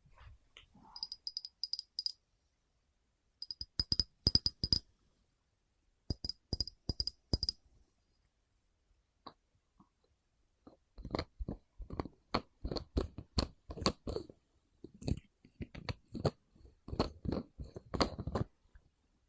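Close-miked tapping and knocking on small hard objects: three quick runs of taps with a bright ringing tone, then after a pause a longer, denser run of sharp crackly taps.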